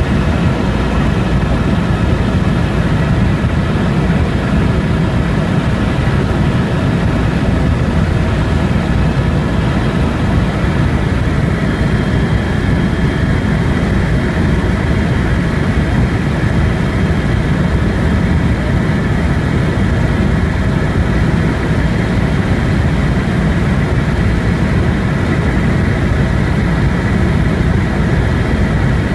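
Helicopter in flight, its engine and rotor running steadily: a loud, even low rumble with a steady whine above it.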